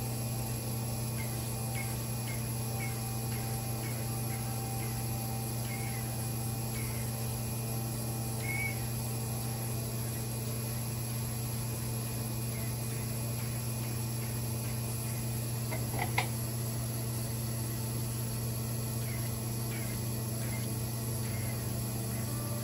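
Crystal microdermabrasion machine's pump running with a steady low hum while the wand is passed over the skin, with faint short chirps recurring every second or so. A single brief click about sixteen seconds in is the loudest moment.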